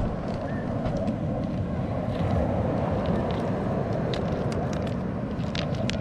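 Pigeons pecking and stepping among beach pebbles close by, making scattered light clicks over a steady low rumble.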